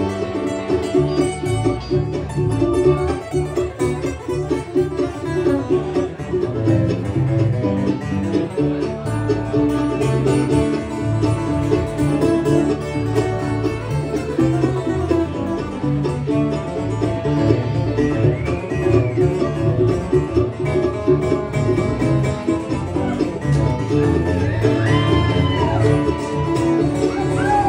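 A band playing an instrumental passage in country style: plucked strings over a steady, rhythmic bass line, with sliding notes near the end.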